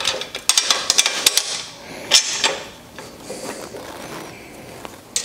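Clicks and knocks of a reel mower's metal handle tubes and bolts being fitted together by hand. A quick run of them comes in the first second and a half and a few more about two seconds in.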